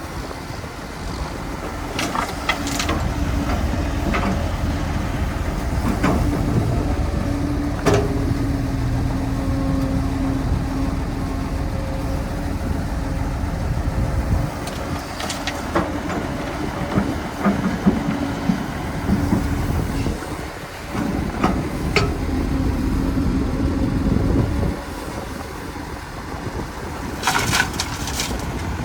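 Excavator's diesel engine running steadily under load with a constant hum, broken by sharp metallic clanks every few seconds.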